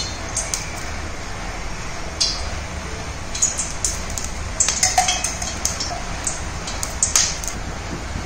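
Oil heating in a stainless steel kadai on a gas stove: a steady low hum with scattered light metallic clicks and clinks.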